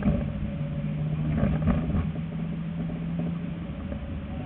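City tram running along its rails, with a low rumble and a steady low hum that stops about three and a half seconds in. A few short clacks come from the wheels on the track.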